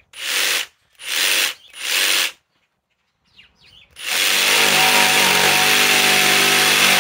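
Ryobi ONE+ PBLJS01 cordless jigsaw running in three short bursts of about half a second each, then from about four seconds in running steadily as its blade cuts through a wooden board.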